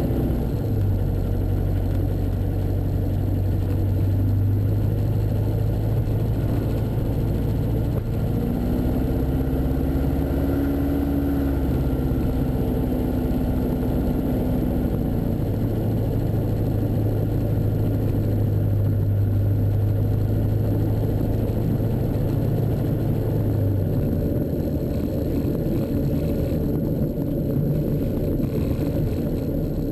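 Piston engine and propeller of a single-engine light plane running steadily, heard from inside the cockpit as the plane rolls along the runway. A higher tone rises slightly about a third of the way through and settles back about halfway.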